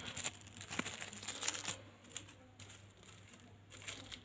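Crinkling and crackling of a small red plastic wrapper being handled and pulled open, busy for the first second and a half or so and then dying away.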